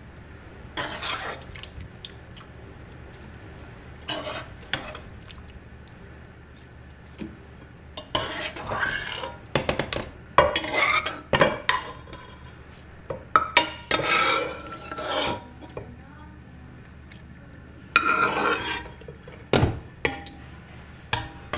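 A metal slotted spoon scrapes along a pan and clinks against a glass bowl in several short bursts as diced boiled potatoes are scooped out of their water. A faint low hum runs underneath.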